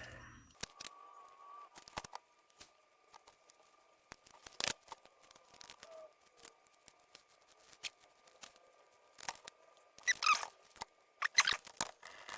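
Light clicks and taps of a small electronic part and hand tools being handled on a workbench, with two short scratchy rubs near the end.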